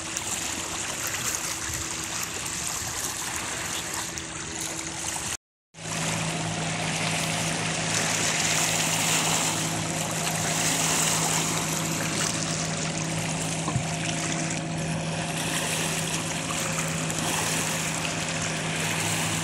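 Small waves lapping along the river shore, a steady watery hiss. After a brief cut about five seconds in, a steady low motor hum joins it.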